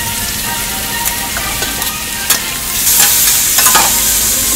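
Bacon pieces and sausages sizzling on a flat-top griddle, with tongs turning the meat. A few sharp clicks come in the first half, and the sizzle turns louder and brighter about three seconds in.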